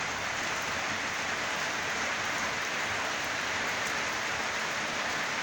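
Rain falling steadily, an even hiss with no thunderclap.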